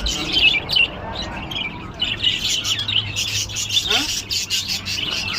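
Many small birds chirping and twittering at once in a dense, continuous chatter, with a short rising call at about four seconds.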